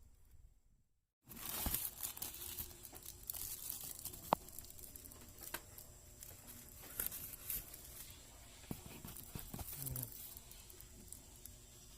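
Packaging being torn open and handled: tearing and crinkling with scattered small clicks and taps. It starts after about a second of silence, and there is one sharp click about four seconds in.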